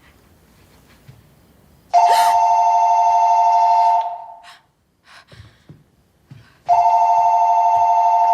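A telephone ringing twice, each ring a steady electronic two-tone trill lasting about two seconds, the second still sounding at the end. It is an incoming call from the home security company after the back-door alarm was set off.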